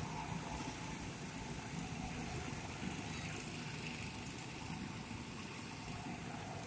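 Go-karts running around the track, a steady engine hum without sharp events, over a steady high-pitched hiss.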